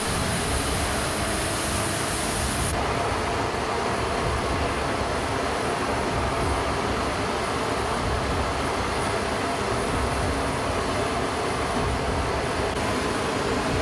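Steady noise of a C-17 Globemaster III's turbofan engines, a dense continuous rush with faint steady tones in it. The highest hiss drops off abruptly about three seconds in.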